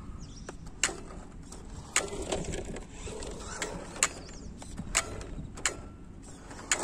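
Sharp clicks from a stick-type RC transmitter as its sticks are worked, about six of them at uneven spacing, which the owner calls a loud clicking. Underneath, the faint whine of the radio-controlled car's stock electric motor rises and falls as it drives on asphalt.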